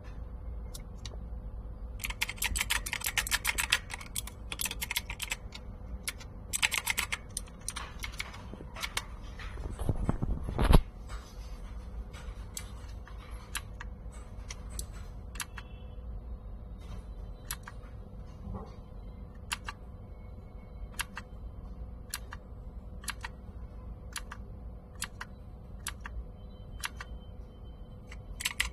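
Mechanical keyboard keys being typed: sharp key clicks, in quick dense runs early on and sparser single strokes later, over a steady low hum. About ten seconds in there is one louder low thud.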